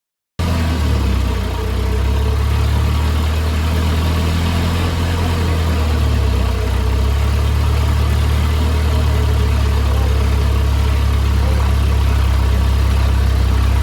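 Volvo B230 2.3-litre four-cylinder engine idling steadily with a heavy low drone, coming in after a short silence at the start. It is running on a MicroSquirt ECU with the spark timing 180 degrees off, firing on the wrong stroke and causing afterburn in the exhaust.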